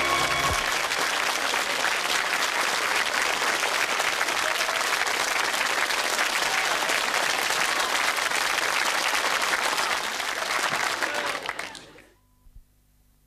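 Audience applauding over the last held chord of the closing theme music, which ends about half a second in; the applause carries on steadily, then fades out quickly near the end.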